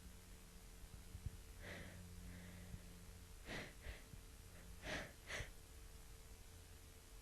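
A woman with a head cold taking about five short, faint, breathy intakes of breath through her nose and mouth, the last few quicker, as a sneeze builds up.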